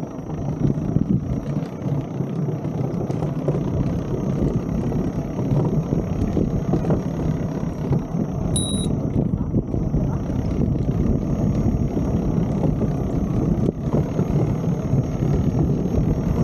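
Electric unicycle rolling fast over wooden boardwalk planks: a steady rumble of the tyre on the boards mixed with wind on the microphone, growing louder over the first few seconds as speed builds. A short electronic beep about 9 seconds in.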